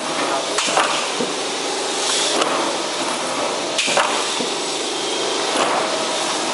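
CNC plate shearing machine running with a steady mechanical noise, with sharp metallic knocks every second or two as a steel plate is fed and clamped, the loudest about four seconds in, along with short bursts of hiss.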